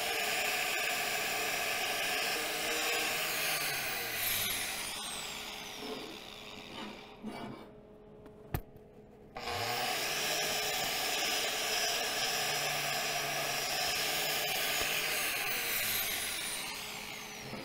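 Angle grinder with a wire wheel spinning up and scrubbing welded steel tubing to clear weld spatter. It winds down about six seconds in, stays off for a couple of seconds, then spins up again and runs until it winds down near the end.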